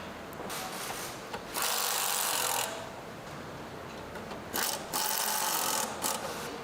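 Workshop tool noise: two loud bursts of about a second each, the first about a second and a half in and the second about five seconds in, with a few small clicks between.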